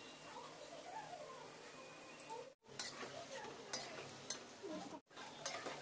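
Palm-fruit fritters deep-frying in a wok of hot oil with a steady sizzle. A metal slotted spoon clinks sharply against the aluminium wok several times as the fritters are turned. The sound drops out twice for an instant.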